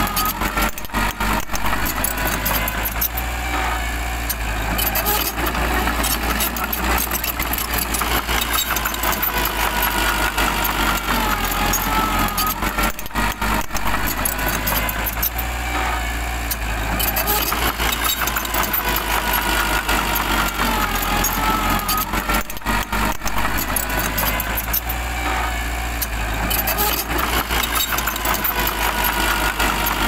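Small crawler bulldozer's diesel engine running under load as the machine pushes soil and rock, with its tracks clattering. A wavering high whine comes and goes over it several times.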